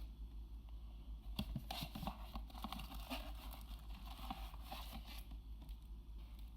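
Packaging and small parts being handled: rustling, scraping and light clicks for about four seconds, starting about a second and a half in. A steady low hum runs underneath.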